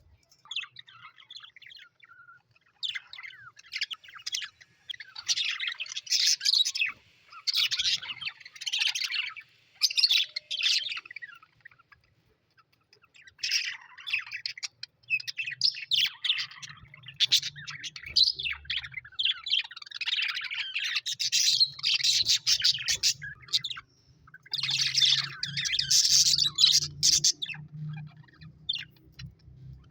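Birds chirping and chattering in bursts of rapid, busy calls, with short pauses between phrases about twelve and twenty-four seconds in.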